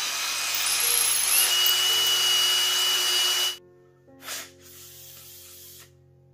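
Cordless drill running at speed as it bores through a gas canister's check valve held in the hand, with a steady high whine; it stops abruptly about three and a half seconds in. Two short, faint puffs of air follow, blowing through the freshly drilled valve.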